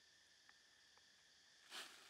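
Faint sound of a pan of noodles and prawns simmering over a wood campfire: a steady soft hiss with two tiny ticks, then one louder short crackle near the end.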